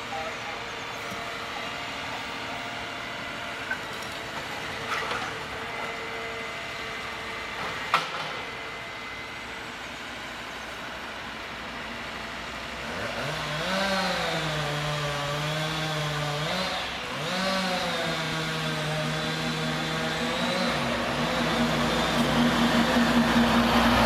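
John Deere 1470E harvester's diesel engine running steadily with a few knocks, then revving up and dipping several times as the harvester head works a trunk. Near the end a passing vehicle swells loudly over it.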